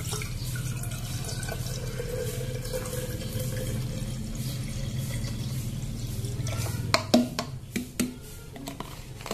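Vinegar pouring in a steady stream from a plastic bottle into a glass jar, filling it. The stream stops about six and a half seconds in, followed by a few short knocks.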